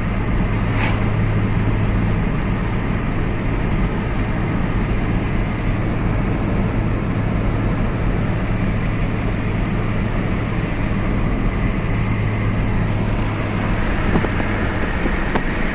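A car driving: steady engine hum and road noise.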